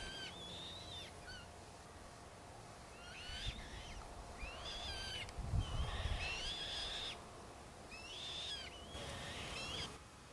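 An owl calling repeatedly: about six shrill calls, each rising in pitch and then holding, most under a second long.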